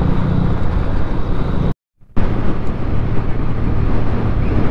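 Motorcycle engine running steadily while riding, heard from the rider's own bike along with road and wind noise. The sound cuts out for a moment about two seconds in and comes back with a slightly lower, steady engine note.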